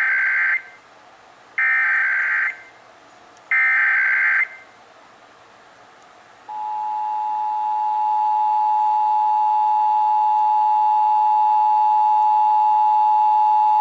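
Emergency Alert System test signal: three short bursts of SAME digital header tones, each just under a second long with about a second between them. About two seconds later the steady two-tone EAS attention signal (853 and 960 Hz) comes in, swelling over about a second and then holding, the cue that the alert message follows.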